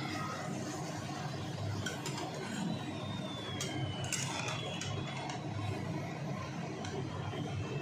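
A papad frying in hot oil in a kadai, a steady sizzle, with a few sharp clicks of a steel spatula against the pan about halfway through.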